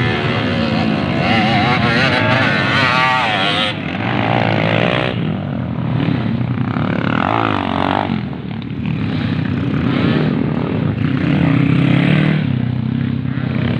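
Dirt bike engines racing on a dirt track, revving hard with the pitch rising and falling again and again.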